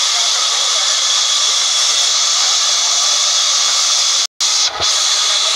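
Large sawmill band saw running and cutting a long mahogany log: a loud, steady rushing noise with a high, steady whine on top. The sound drops out completely for a moment about four seconds in.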